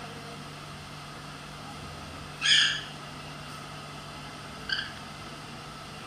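African grey parrot calling: one loud call about two and a half seconds in, then a shorter, quieter one near the end, over a steady low hum.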